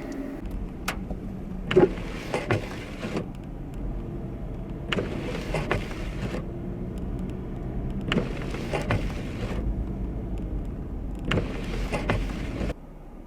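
Inside a moving car, steady road and engine noise with a regular swish about every three seconds, typical of windshield wipers clearing blowing snow. The sound drops off suddenly near the end.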